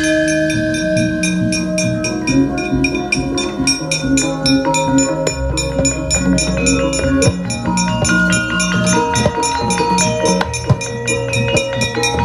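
Javanese gamelan ensemble accompanying a wayang kulit shadow-puppet play: struck bronze keys ringing in changing notes over drumming, with rapid, even knocking throughout.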